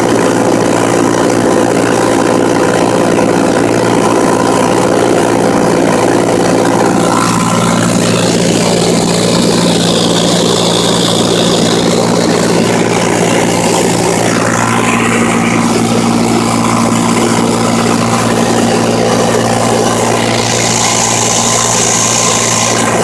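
Steady drone of a Cessna 182T's six-cylinder Lycoming engine and propeller in flight, heard from inside the cabin.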